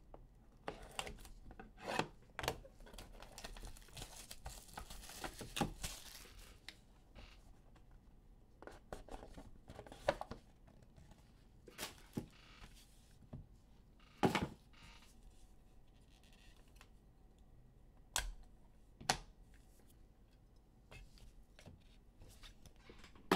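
Shrink-wrap on a Leaf Metal trading-card box being cut with a box cutter and torn off, a crinkling, tearing stretch in the first several seconds. The box is then opened and handled, with scattered sharp taps and clicks.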